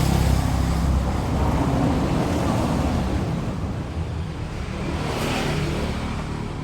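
A motor running with a steady low rumble, swelling louder at the start and again about five seconds in.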